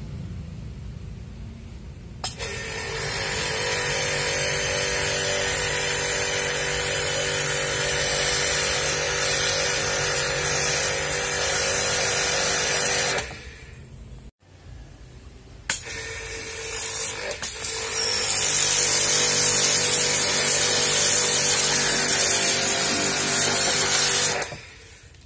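Pressure washer running and spraying water onto an aluminium engine cylinder head: a steady hiss of the jet over the whine of the pump motor. It starts about two seconds in, cuts off for a couple of seconds around the middle, then runs again until near the end.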